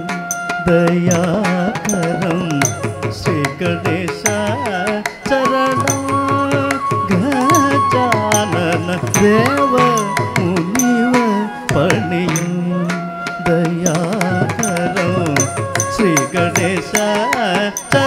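Carnatic music for Bharatanatyam dance: a melodic line that holds notes and glides between them, with singing, over steady rhythmic drum strokes.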